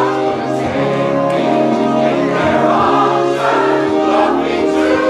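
Mixed-voice choir singing, holding long notes.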